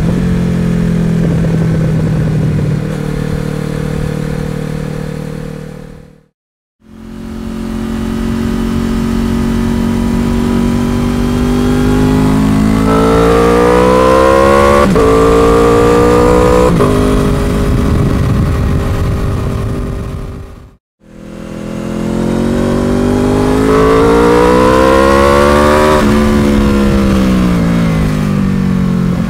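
Honda VFR800F's 781cc V4 Hyper VTEC engine and exhaust in three spliced recordings. It runs at a steady pitch, then climbs in pitch under acceleration with two sudden drops, then rises and falls again.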